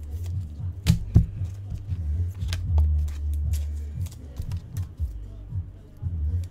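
Background music with a heavy bass beat, with sharp clicks and snaps of trading cards and packaging being handled several times, loudest about a second in.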